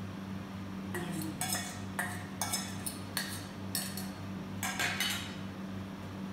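A metal fork clinking and scraping against a stainless steel mixing bowl as beaten egg is scraped out into a sieve: a quick, irregular run of sharp clinks lasting about four seconds.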